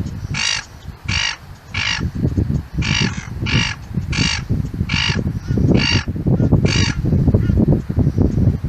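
A gull calling in a series of about nine short, harsh calls, roughly one and a half a second, that stop about seven seconds in. Wind rumbles on the microphone underneath and grows louder near the end.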